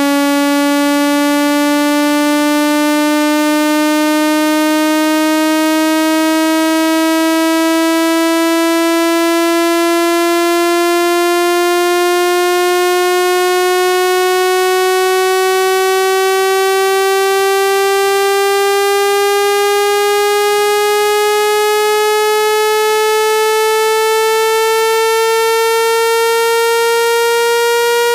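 Synthesized speaker water-eject tone: a loud, steady, buzzy tone that climbs slowly and evenly in pitch, played to vibrate water droplets out of a phone speaker.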